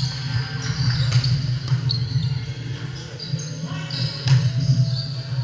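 Indoor volleyball rally on a hardwood gym floor: sneakers squeak and hands slap the ball several times, the loudest hit a little after four seconds when a player spikes at the net. A steady low hum fills the hall.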